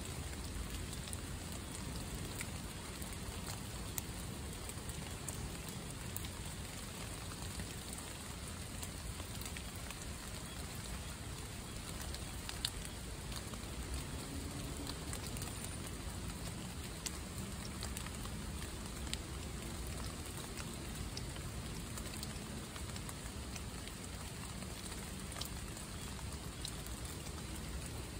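Steady rain falling on leaf litter, an even hiss broken by a few sharper drop hits.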